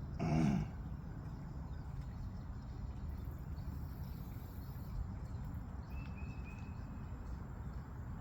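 Outdoor ambience with a steady low rumble, a short, loud pitched call right at the start, and a faint high chirp about six seconds in.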